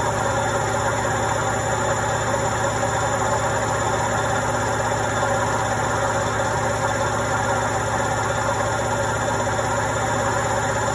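Indesit washing machine running a quick wash cycle: a steady mechanical hum and vibration with a constant whine, without pauses or changes.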